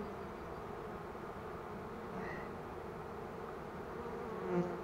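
Honeybees buzzing steadily around an open hive.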